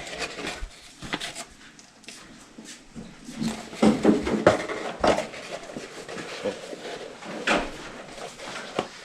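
Irregular clicks and knocks, as of objects being picked up and set down, with a louder cluster of knocks in the middle.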